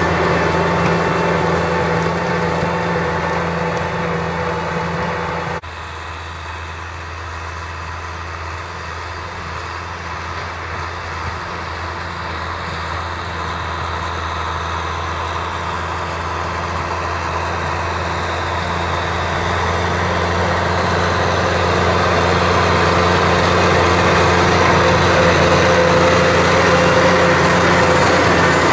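Kubota M6040SU tractor's four-cylinder diesel engine running steadily under load while pulling a plow through the field. The level drops suddenly about five and a half seconds in, then grows steadily louder as the tractor comes closer.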